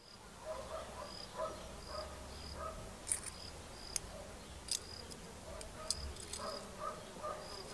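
Birds chirping outdoors, short repeated calls with a brief high note that keeps recurring, and a few sharp clicks in the middle of the stretch.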